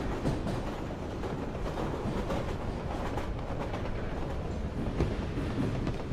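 Steady rumble and rattle of a fast-moving train heard from inside one of its cars, with light clanks throughout.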